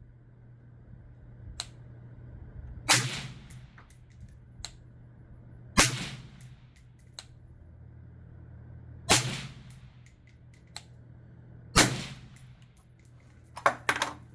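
Suppressed 5.56 rifle fitted with a B&T VERS36 titanium suppressor firing four slow, single shots about three seconds apart, each with a short trailing echo. A few light metallic clicks follow near the end.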